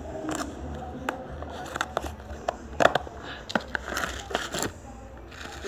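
Irregular clicks, knocks and rustling from a plastic margarine tub being handled, with the sharpest knock about three seconds in.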